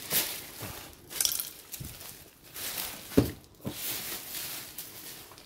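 A plastic bag wrapping being torn and pulled off a cardboard box, crackling and rustling in several short bursts, with one sharp knock about three seconds in.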